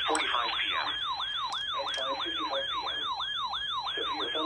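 Electronic siren yelping: a fast, repeating rise and fall in pitch, about three sweeps a second.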